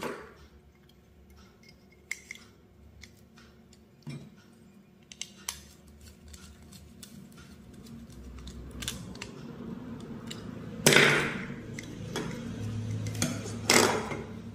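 Handling noise from a plastic batten lamp holder being wired and assembled: scattered small clicks as wires go into its terminals and a screwdriver works the terminal screws, then two louder plastic clatters in the second half, the last near the end as the holder is fitted together.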